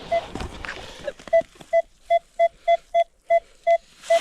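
Metal detector pinpointer beeping: short beeps all at the same pitch, about three a second and quickening briefly near the middle, as it closes in on a small metal target in the dug soil.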